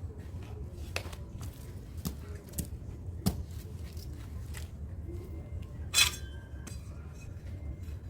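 Scrap metal parts from a dismantled washing machine being handled, giving scattered light knocks and clicks and one louder ringing clink about six seconds in, over a low steady rumble.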